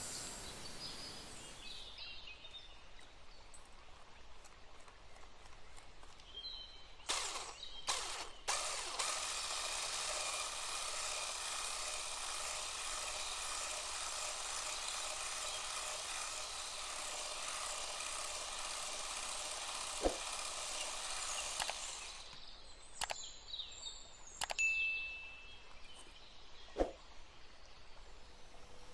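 Sugar poured in a hissing stream into a glass bowl, then an electric hand mixer running steadily for about thirteen seconds, beating eggs and sugar, and stopping suddenly. A few sharp clicks and taps come before it starts and after it stops.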